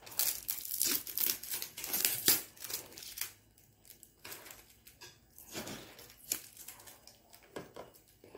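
Plastic wrapping and a cardboard food box rustling and crinkling as hands lift out and handle a round tin. The rustle is dense for the first two or three seconds, then thins to scattered crinkles.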